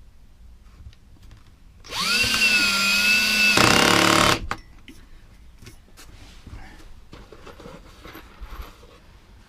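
Cordless drill driving a screw into the van's floor: the motor spins up to a steady whine about two seconds in, runs for roughly two and a half seconds and stops abruptly. Faint clicks and handling follow.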